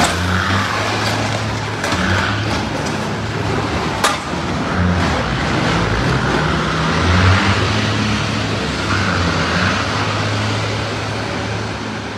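Steady road and vehicle noise, a rumble of engines and traffic, with one sharp click about four seconds in.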